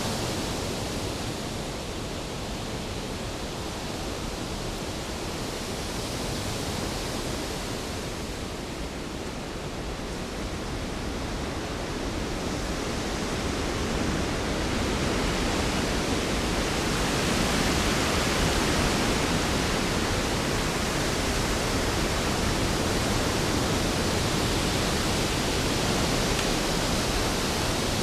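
Storm sound effect: a dense, steady rush of rain and wind noise with no distinct thunder claps, swelling a little louder about halfway through.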